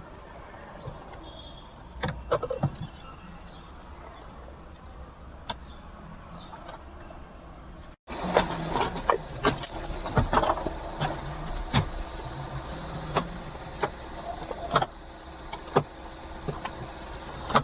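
Scattered clicks and knocks of plastic interior trim around the gear lever being handled and snapped into place, over a faint steady hum. The clicks grow busier in the second half.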